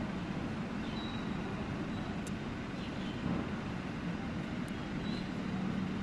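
Steady low rumble of motor traffic, with a couple of faint light clicks.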